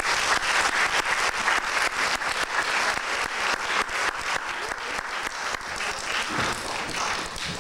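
Audience applauding, a dense clatter of many hands clapping that thins out near the end.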